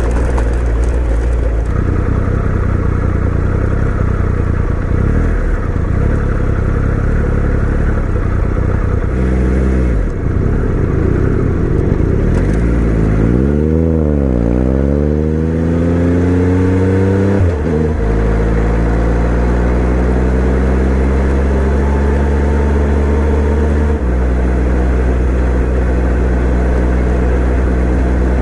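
Motorcycle engine running while being ridden. Its pitch holds steady for long stretches, dips and climbs with the throttle about halfway through, then drops suddenly, with another sudden step later on.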